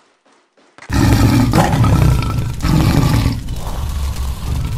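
Loud big-cat roar sound effect, a tiger's roar in two or three long surges, starting suddenly about a second in.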